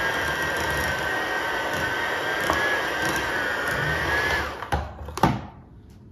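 Electric hand mixer running steadily with a high whine, its beaters creaming room-temperature cream cheese in a glass bowl. The motor stops about four and a half seconds in, followed by two sharp knocks.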